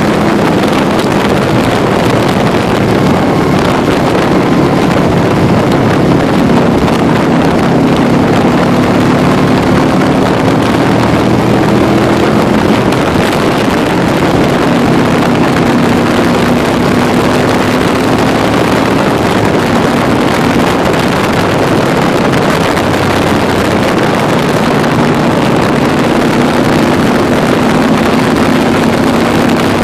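Can-Am Spyder three-wheeled motorcycle's engine running steadily at road speed, its pitch drifting slowly up and down, under heavy wind noise on the microphone.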